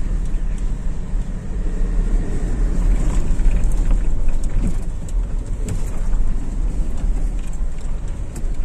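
Steady low rumble of a car heard from inside the cabin while driving: engine and road noise, with a few light ticks.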